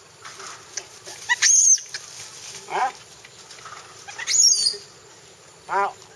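Monkeys shrieking: two loud, high squeals about a second and a half and four and a half seconds in, each with a shorter, lower call after it.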